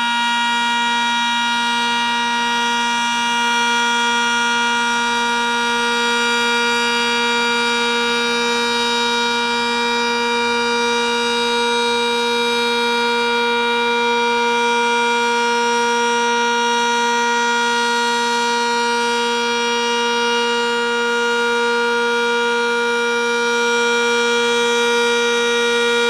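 Sentry 10V outdoor warning siren sounding a steady alert tone, held at one pitch.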